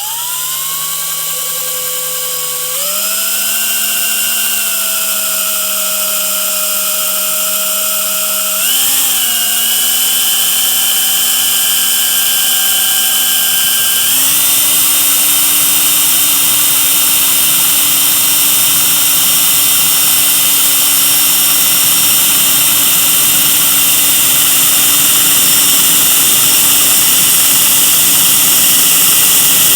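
Small electric drill with a grinding bit running continuously, a steady whine over a grinding hiss, grinding out a drilled hole in a carbon fishing pole to take a side puller. Its speed steps up three times, at about 3, 9 and 14 seconds, then holds steady.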